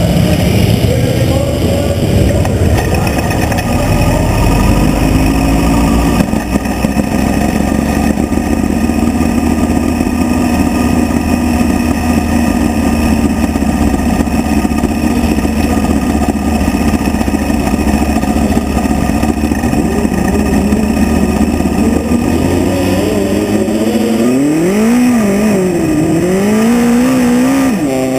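Midget race car engine, picked up by a camera mounted on the car, running at a steady pitch. Near the end it is revved up and down several times.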